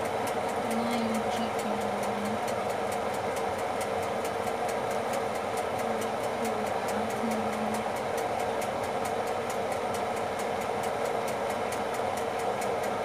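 Steady motor hum from a running kitchen appliance, with a light even ticking about four times a second.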